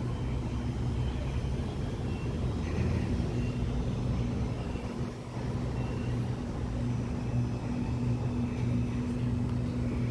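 Sydney Trains Waratah electric double-deck train standing at the platform, humming steadily with a low, even drone from its on-board equipment.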